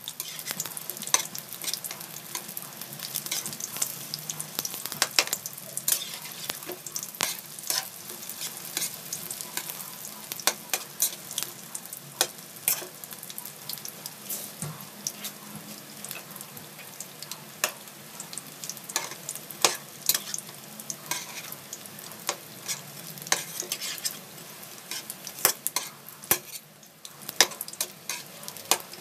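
Vegetable lumpia (spring rolls) frying in shallow oil in a metal wok: a steady sizzle with frequent sharp crackles and pops, and tongs clicking against the pan as the rolls are turned.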